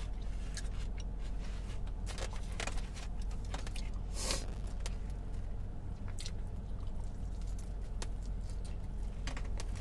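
Eating sounds: chewing, with scattered small clicks and crackles of food being handled and a brief louder crunch about four seconds in, then a bite into a fried birria taco near the end, over a steady low hum.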